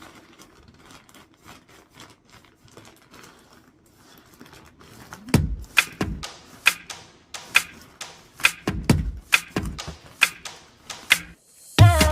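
Faint rustling and clicks, then from about five seconds in a music beat of deep thumps and sharp clicks.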